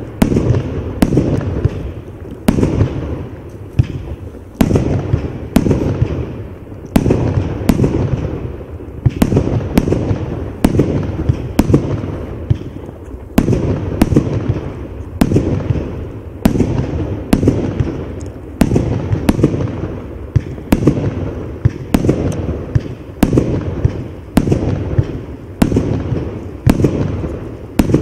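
Absolute Fireworks 'Rolling Thunder' 150-shot 30 mm cake firing shot after shot: a loud bang about every second or less, each followed by a low rumbling echo that runs into the next.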